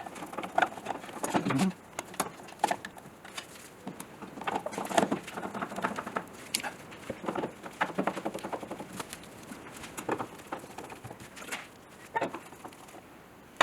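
Irregular small clicks and taps of hands fitting a replacement side-light lens into its housing.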